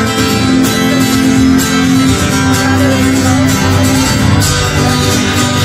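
Folk-punk band playing live through a PA: strummed acoustic guitar and electric guitars over drums, loud and steady, in an instrumental passage.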